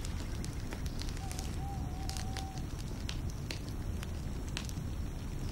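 Campfire burning: a steady low rush with scattered sharp crackles and pops from the burning wood.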